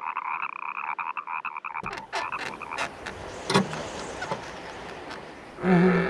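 Cartoon frog croaking: one long rattling croak lasting about three seconds. It is followed by a hiss with scattered clicks, a knock about three and a half seconds in, and a short voice-like call near the end.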